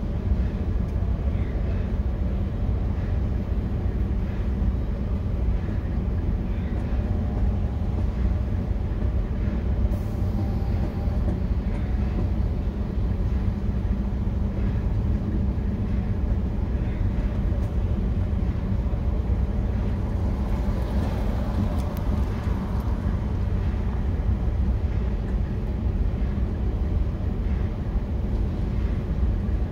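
Steady low rumble of an idling vehicle engine, heard from inside the cabin.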